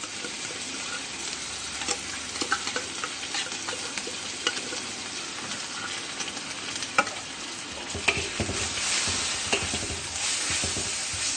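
Canned tuna in olive oil sizzling in hot oil in a pan with pounded chilies, garlic and ginger, with scattered clicks of a utensil against the pan. The sizzle grows louder about eight seconds in.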